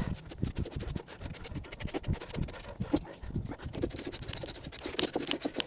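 Quick, irregular scratching and scraping strokes as old, deteriorated foam residue is cleaned off the backing of a car headliner panel.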